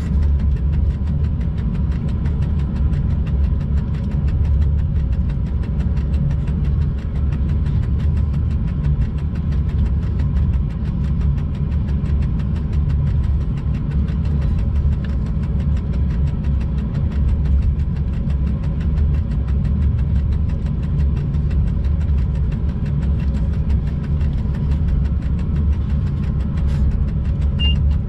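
Steady low rumble of a freight locomotive's cab while the train is under way, with a faint constant hum above it.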